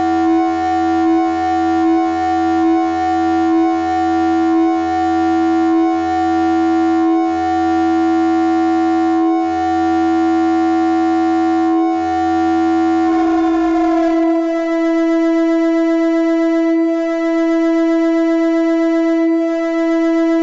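Electronic drone music: a loud sustained tone with many overtones, over a low pulsing throb that drops out about thirteen seconds in, leaving the steady held tone alone.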